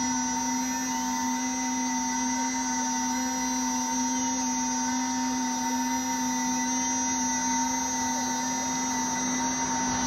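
2.2 kW CNC router spindle running at speed with a steady whine while the machine works through its toolpath. Faint whines that rise and fall a few times come from the axes speeding up and slowing down.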